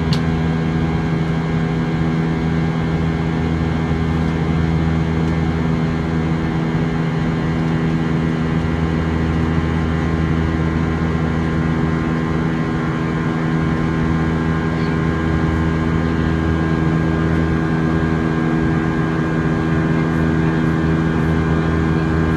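Airbus A319 jet engines and airflow heard inside the cabin in flight: a steady drone with several constant hum tones over an even rush of noise.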